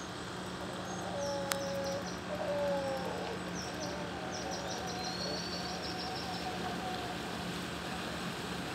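Birds calling: short high chirps and a quick run of notes, with lower drawn-out whistled notes about a second in, over a steady low hum.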